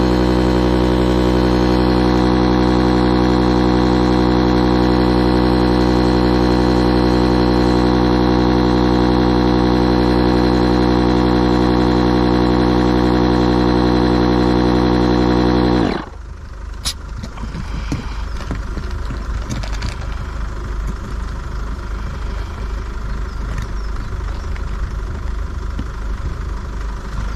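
12 V electric inflatable-boat pump running steadily as it inflates the dinghy, with a constant droning hum that stops suddenly about sixteen seconds in when the pumping is finished. After that there is only lower background noise with a click or two.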